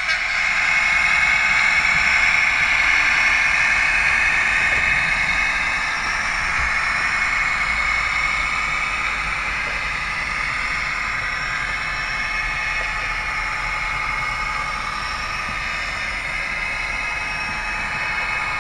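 OO gauge model train running along the track as it pulls out of the station: a steady mechanical running noise that eases off over the first several seconds, then holds steady.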